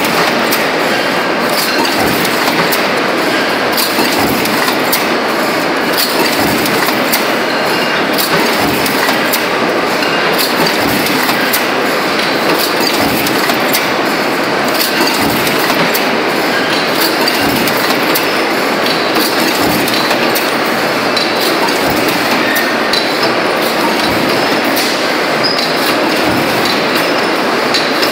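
Multi-station transfer stamping press running in production: a loud, steady metallic clatter, with a dull thump of the press stroke about every two seconds.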